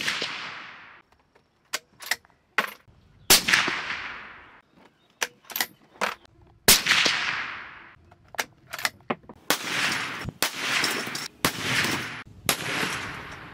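Suppressed .308 Winchester bolt-action rifle firing: a shot right at the start and two more about three and seven seconds in, each trailing off in a long echo, with the metallic clicks of the bolt being worked between them. From about halfway through comes a quicker run of shots, about one a second.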